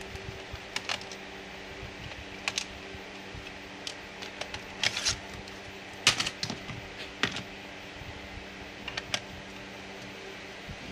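Irregular small plastic clicks and taps from a laptop being taken apart by hand, some in quick clusters, over a steady low hum.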